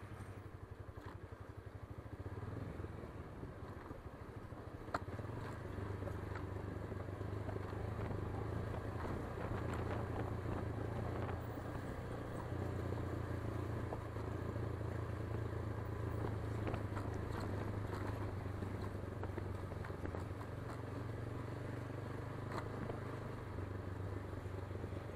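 Motorcycle engine running at low speed while riding slowly, a steady low hum that gets a little louder about five seconds in.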